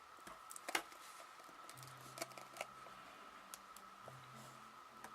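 Faint clicks and taps of a small box being handled and carefully opened by hand, the sharpest click about a second in, over a faint steady high whine.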